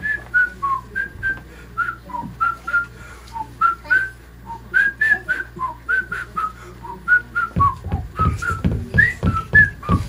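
A tune whistled in short, quick notes between the sung verses. About three-quarters of the way through, a rapid series of low thumps joins the whistling.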